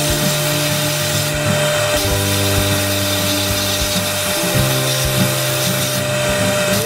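Sandblast gun in a blast cabinet: a steady, loud hiss of abrasive-laden air striking a metal radiator bracket, easing off briefly twice. Background music with sustained notes plays under it.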